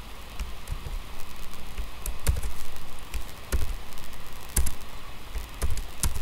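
A handful of separate computer keyboard key clicks and taps, about five spread unevenly, over a steady background hiss.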